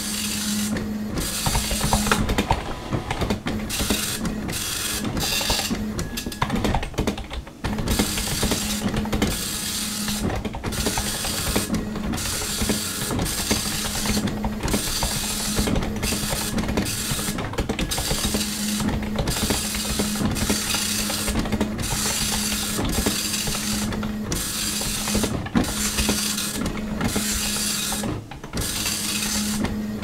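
Dot-matrix printer printing: the print head rasps across the page pass after pass, with brief pauses between lines, over a low hum that comes and goes.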